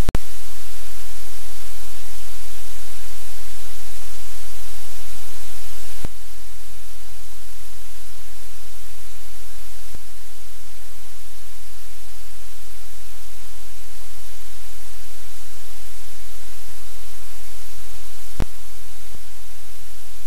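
Loud, steady hiss like white noise or static, with a low steady hum underneath and a few faint clicks.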